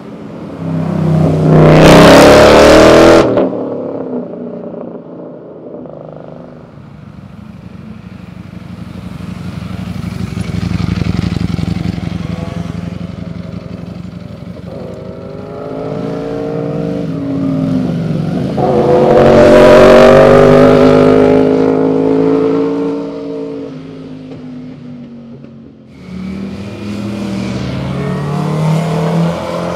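Cars and sport motorcycles passing one after another on a winding road, each engine swelling as it nears and fading as it goes. The loudest passes come about two seconds in, cutting off suddenly, and around twenty seconds in, where the engine revs with climbing pitch.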